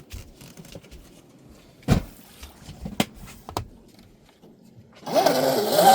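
A few sharp knocks, then about five seconds in the Traxxas M41 RC boat's electric motor starts up with a loud whine that wavers in pitch.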